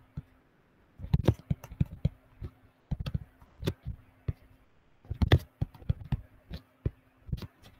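Irregular sharp taps and clicks of a stylus on a tablet screen while writing by hand, starting about a second in, a few a second and often in small clusters, with the loudest cluster a little past the middle.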